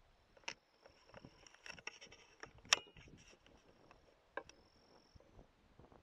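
Faint night ambience: a steady high insect trill that stops about five seconds in, with scattered small clicks and rustles.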